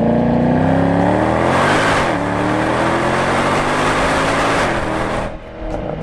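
Mercedes CLK63 AMG's M156 naturally aspirated V8 accelerating hard under load, the revs climbing steadily before a gear change about two seconds in. The exhaust stays loud and rough for a few more seconds, then eases off about five seconds in.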